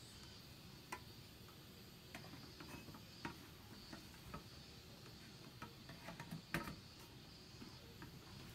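Faint scattered clicks and light metal taps of an aluminium mess tin being handled, with one louder knock about three-quarters of the way in.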